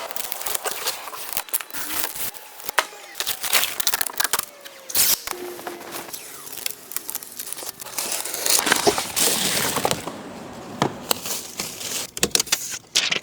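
Packaging being handled and torn open: plastic and paper crinkling and rustling, with many sharp crackles and clicks throughout. It stops abruptly at the end.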